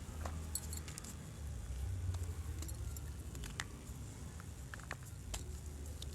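Gym chalk crunching: a scatter of sharp, dry crackles and snaps, irregularly spaced, over a low steady rumble.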